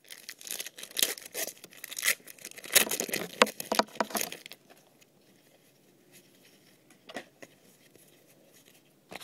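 A 2010 Panini Rookies & Stars trading-card pack being torn open by hand, its wrapper crinkling and crackling for about the first four seconds, then only a faint click later on.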